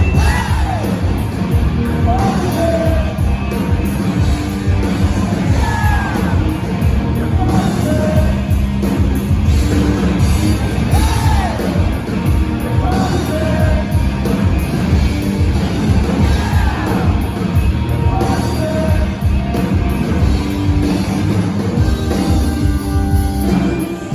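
A rock band playing live, with a sung lead vocal over full band and steady drums.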